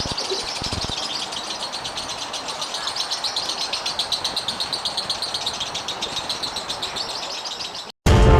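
Lovebird singing a long unbroken run of rapid, high chirps, several a second, that cuts off abruptly near the end.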